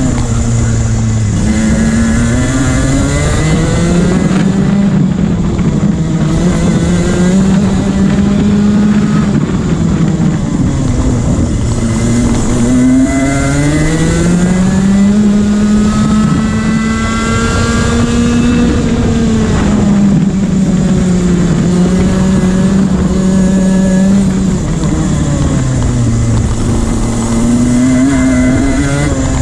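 Rotax 125cc single-cylinder two-stroke kart engine at race speed, heard onboard. Its pitch keeps rising under throttle and dropping as the driver lifts off for corners, several times over.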